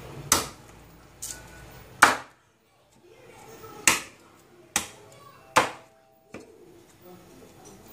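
A cleaver chopping roast pork on a thick round wooden chopping board. There are five hard chops and two lighter ones, spaced irregularly about a second apart.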